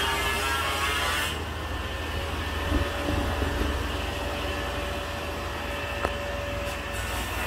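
Steady low machine hum with a faint whine; a denser whining sound stops about a second in, and there is a single sharp click near the end.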